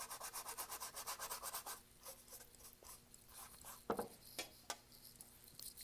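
Bristles of a flat acrylic paintbrush scrubbing paint onto a canvas in rapid back-and-forth strokes, strongest for the first two seconds and fainter after, with a few soft knocks about four seconds in.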